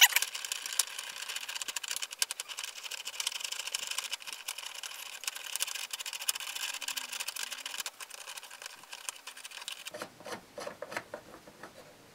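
Steel threaded rods spun by hand through nuts in a 3D-printed plastic vise part: a fast, continuous rattle of threads running through the nuts. It stops about ten seconds in, leaving a few scattered handling clicks.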